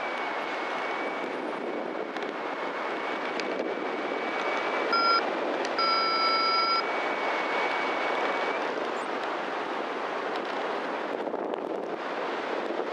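Wind rushing over the microphone of a camera on a paramotor in flight, a steady noise with no engine note standing out. A thin steady high tone runs until about two-thirds through, and two short electronic beeps sound around the middle.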